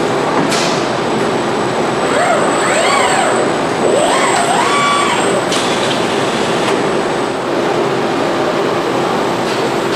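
Assembly-line machinery: industrial robot arms whining up and down in pitch as they move, several overlapping glides in the first half, over a steady machine hum.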